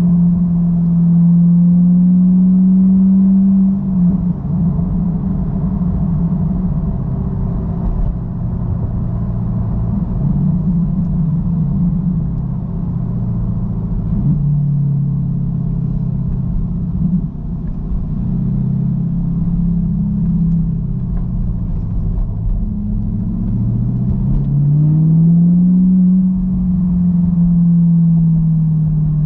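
Chevrolet Corvette C8 Stingray's 6.2-litre V8 running through a Corsa Xtreme exhaust while being driven: a steady exhaust drone whose pitch drops and climbs with the revs and gear changes. Near the end it dips, climbs steadily as the car accelerates, and then eases off.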